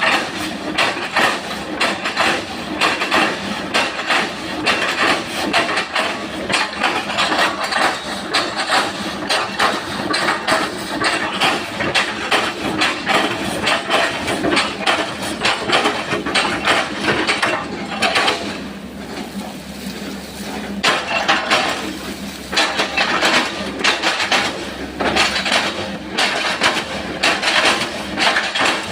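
Sany SY135F excavator chipping oil palm trunks: rapid, repeated knocks and cracks of steel striking wood over the running engine, easing off briefly about two-thirds of the way through.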